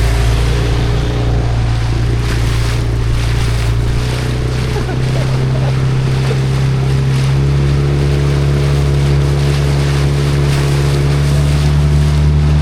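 Outboard motor of a small inflatable boat running under way, with wind and water rush. Its pitch steps up about five seconds in and again about seven seconds in.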